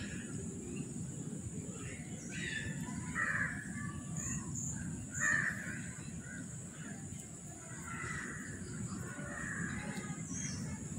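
Crows cawing, several scattered calls with the loudest about five seconds in, over a faint steady high hiss.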